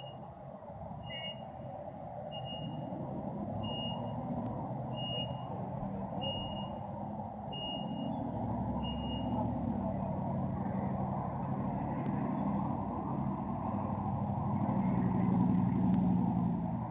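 A heavy vehicle's reversing alarm beeps eight times, about one every 1.3 seconds, then stops about halfway through. Under it an engine runs, growing louder to its loudest near the end before fading sharply.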